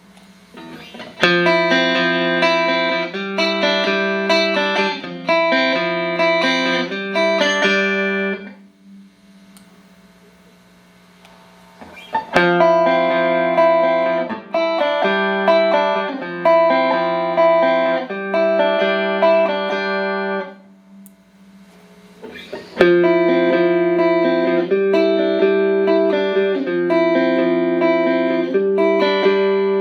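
Clean electric guitar played through a Boss GE-7 equalizer pedal into Roland JC-120 amps. It plays three phrases of chords, changing about once a second, with two short pauses between the phrases.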